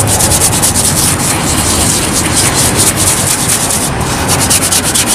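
Rapid, steady scrubbing strokes on a suede boot, working cleaning gel into a worn, scuffed patch of the leather.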